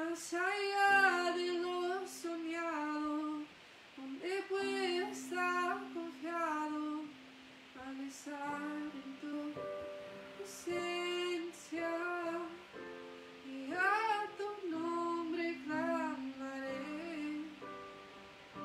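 A woman singing a song in phrases, accompanied by an electric keyboard playing held chords.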